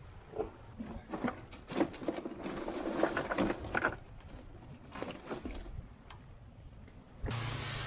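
Irregular clicks, knocks and scrapes of hands and tools at work, densest in the middle. Near the end the sound cuts suddenly to a steady hiss.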